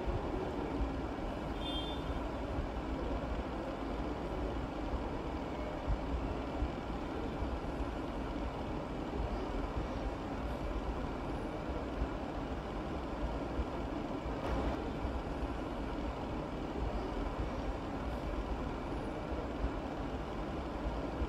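Steady low rumbling background noise with a couple of faint clinks.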